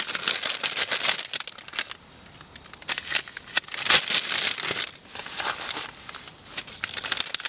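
Plastic packaging of a self-heating ration pack crinkling and rustling in irregular bursts as the food pouch is pushed into the pack's plastic bag, with a quieter spell about two seconds in.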